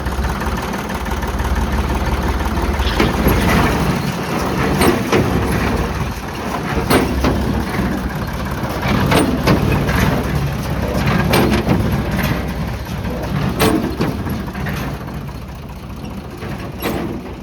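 Deutz diesel engine of a New Holland Hayliner 505 baler running steadily, with a loud mechanical clatter repeating about every two seconds.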